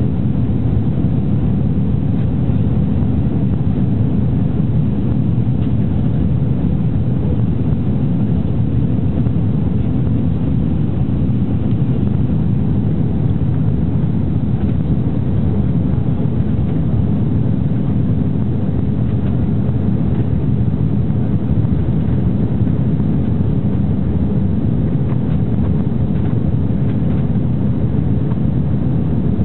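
Airbus A340 cabin noise during the climb after takeoff: engines and airflow make a steady, even low rumble with no change.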